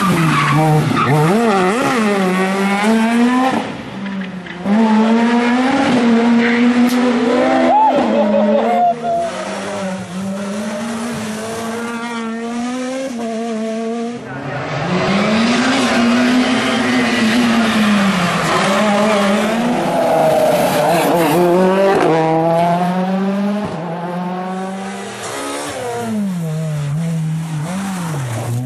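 Rally car engines revving hard, the pitch climbing and falling back repeatedly through gear changes, with tyres squealing.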